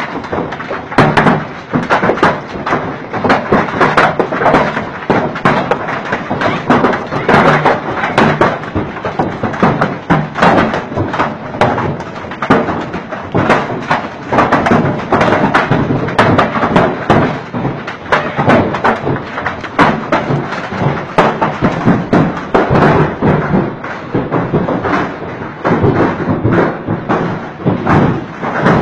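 Ping-pong-ball-sized hailstones pelting down, a dense, irregular stream of hard knocks and thuds that never lets up.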